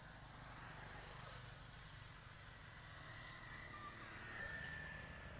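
Faint outdoor ambience: a steady high-pitched insect drone over a low, steady rumble.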